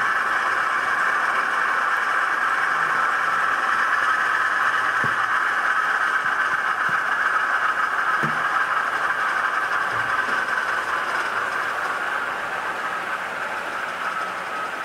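HO scale model diesel locomotive running slowly with a steady hum, a few light clicks along the way, the sound fading over the last few seconds.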